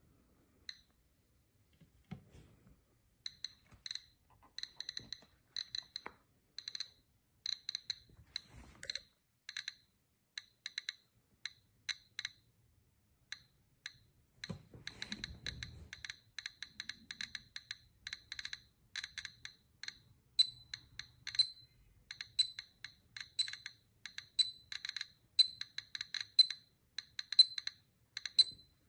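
Steel bowl clinking under many light, irregular taps, a few a second, each ringing briefly at the same high pitch; the taps grow louder and denser in the second half. A dull low thump comes about halfway through.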